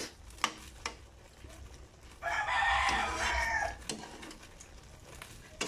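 A rooster crows once in the background, starting about two seconds in and lasting about a second and a half. Light clicks come from a metal spoon stirring pork in a wok.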